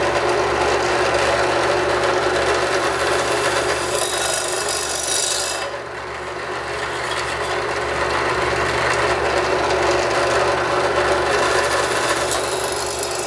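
Drill press running steadily, its bit grinding into the thin metal wall of a small can. A harsher, higher grinding comes about four seconds in and again near the end, as the bit bites into the metal to make the holes.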